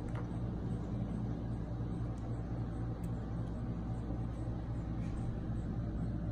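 A steady low hum, with a couple of faint light clicks over it.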